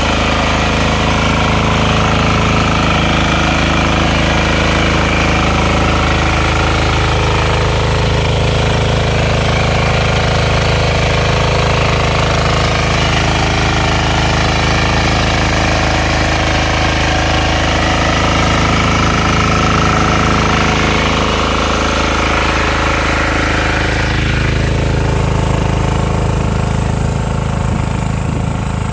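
Walk-behind power tiller's small engine running steadily under load as its tines churn soil between crop rows. The sound turns duller near the end.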